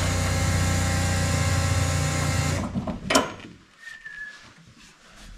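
A small electric motor in the race car whirs with a steady, even hum as the power is switched on. It cuts off suddenly after about two and a half seconds, and a sharp click follows.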